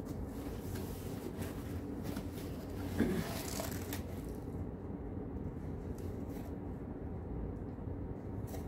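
Faint rustling and scraping of a cardboard gift box lid being lifted and handled, over a steady low hum, with one brief louder sound about three seconds in; the handling dies away after about four and a half seconds.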